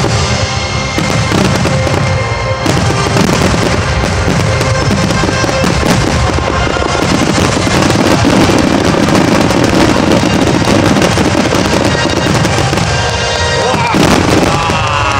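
Large fireworks display: many shells bursting close together in a continuous barrage of bangs and crackling, with music playing over it.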